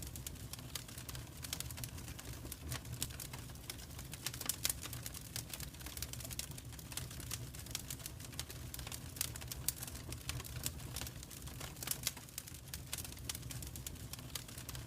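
Wood fire crackling in a fireplace: a steady stream of irregular small pops and snaps over a low, even background sound.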